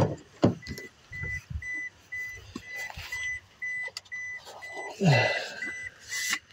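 A car's warning chime beeping steadily at one pitch, about twice a second. Two thumps come near the start, and there is a burst of rustling and shifting about five seconds in.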